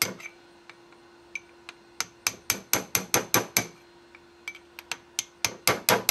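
Small hammer tapping a drift to drive the gudgeon pin out of an old piston on its connecting rod: light metallic taps, in quick runs of about four a second with short pauses between groups. The pin is being pushed out of the piston.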